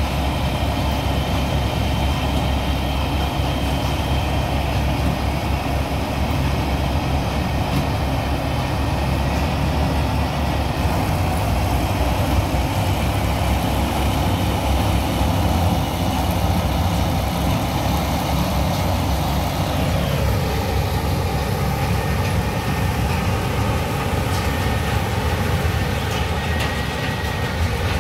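John Deere combine harvester running steadily while cutting paddy, its engine and machinery making a continuous drone. The tone changes about twenty seconds in.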